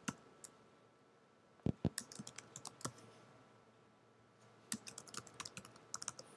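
Typing on a computer keyboard in two short runs, one about two seconds in and another near the end, with a couple of single clicks at the start.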